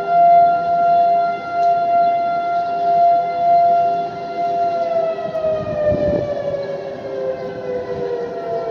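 Outdoor civil defense warning siren sounding during a monthly test. It holds a steady tone whose loudness swells and fades about once a second, then about halfway through the pitch slowly falls. A second, lower steady siren tone sounds beneath it.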